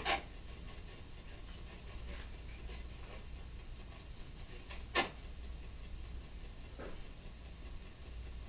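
A quiet room with a low steady hum, broken by sharp clicks: a loud one right at the start, another about five seconds in, and a fainter one near seven seconds.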